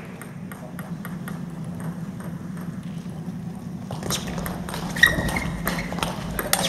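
Table tennis ball being hit back and forth in a rally: sharp clicks of the ball on bats and table, louder from about four seconds in, with a brief squeak near five seconds, over a steady low hum of a large hall.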